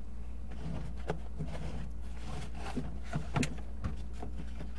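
Light knocks and clicks of kitchen items being handled, scattered irregularly, the sharpest a little over three seconds in, over a steady low hum.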